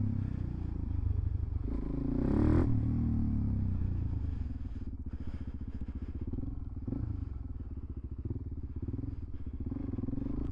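Suzuki DRZ400SM supermoto's single-cylinder four-stroke engine running under way, swelling up on the throttle at about two to three seconds, then pulling steadily.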